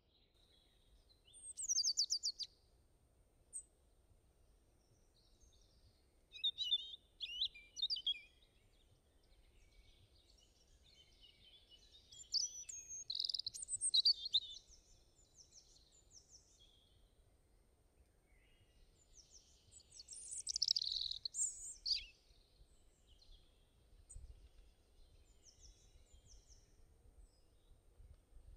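Small birds chirping and singing in short bursts of high, quick notes, about four bursts a few seconds apart, over a faint low background hum.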